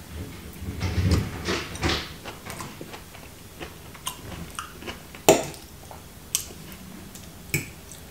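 Close-up chewing of a mouthful of broccoli and potato stoemp, with soft wet mouth sounds. A few sharp clicks of a fork and knife against a plate follow, the loudest about five seconds in.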